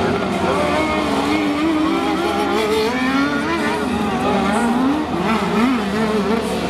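Engines of several racing ride-on lawn mowers running hard and revving, their pitch wavering up and down as the mowers drive past.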